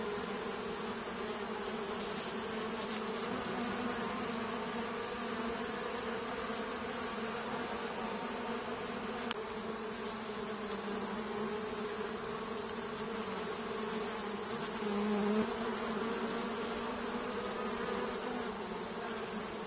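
Bees buzzing in a steady, continuous drone of many wings, with a brief louder swell about fifteen seconds in.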